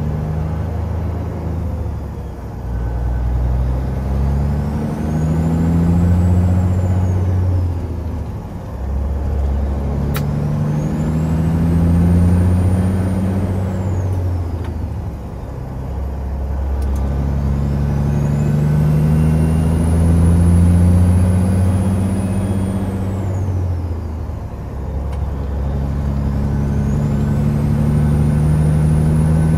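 Peterbilt 379 semi truck's diesel engine pulling hard through the gears, heard inside the cab: the engine note climbs in pitch, then drops back at each of three upshifts. A high turbo whistle rises and falls with each gear.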